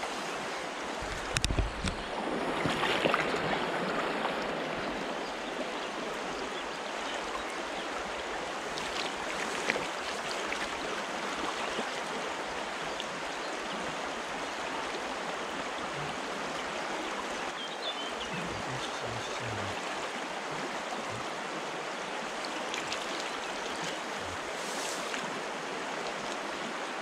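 Shallow river riffle rushing steadily over stones. The noise swells briefly in the first few seconds.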